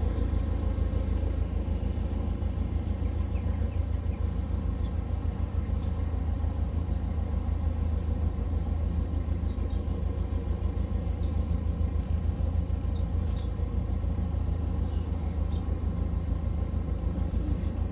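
Narrowboat's inboard diesel engine running steadily under way: a continuous low chugging drone with a fast, even beat.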